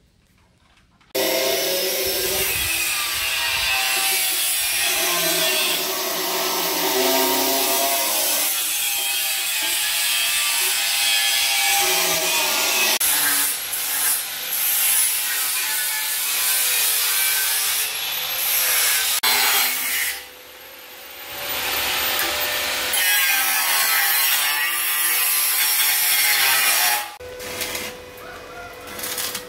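A power tool grinding or cutting into hard material, its pitch shifting under load. It starts about a second in, breaks off briefly past the middle, and stops near the end.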